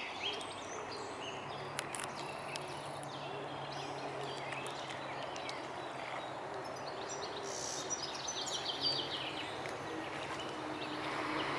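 Outdoor waterside ambience: an even background hiss with a faint steady low hum, and a small songbird singing a quick trill of repeated high notes in the background about two-thirds of the way through.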